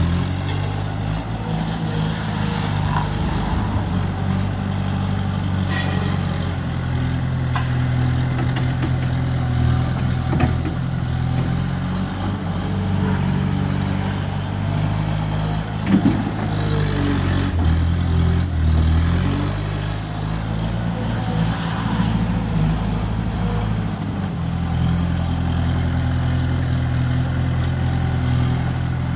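Mini skid steer loader's engine running under changing load, its pitch stepping up and down as the machine works, with a few knocks about halfway through.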